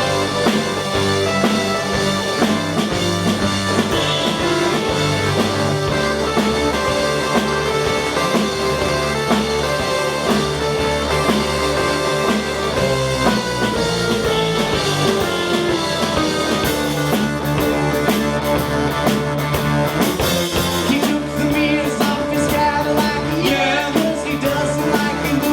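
A rock band playing loud live music, with drums, bass, guitar and singing; the cymbals grow busier about two-thirds of the way through.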